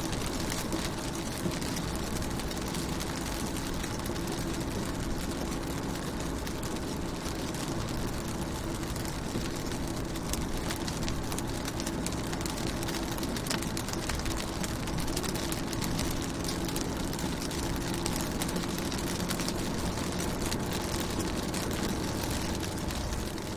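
Rain pattering steadily on a car's window and body, a dense stream of small drop ticks, over a steady low hum.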